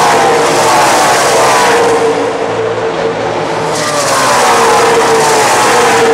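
NASCAR race trucks' V8 engines at full throttle passing by, each one's pitch dropping as it goes past. The sound eases briefly about two seconds in, then another group of trucks goes by.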